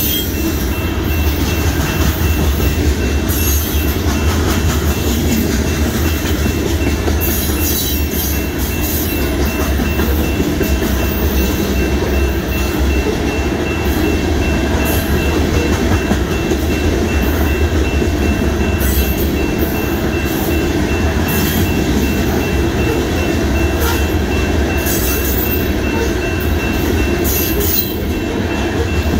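Covered hopper cars of a freight grain train rolling past at speed: a loud, steady rumble of steel wheels on rail, with irregular sharp clacks as the wheels strike rail joints.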